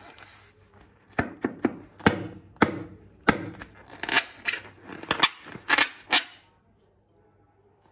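A run of sharp clicks and crackles, about a dozen over five seconds, from the handling of slime-making materials. They stop a second or so before the end.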